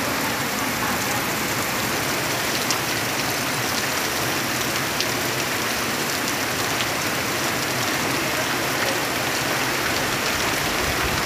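Heavy rain falling steadily on trees and foliage, an even hiss with a few sharp drop ticks now and then.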